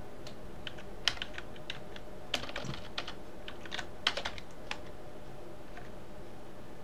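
Computer keyboard being typed on: irregular key clicks in short runs, including a quick triple press of the backspace key, thinning out after about five seconds.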